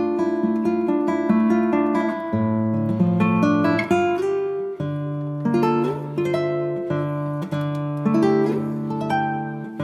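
Background music: acoustic guitar playing plucked and strummed chords, with the harmony changing every second or two.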